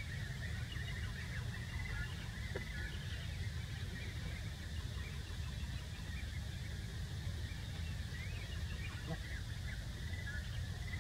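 Outdoor ambience: a steady low rumble with faint, scattered bird calls.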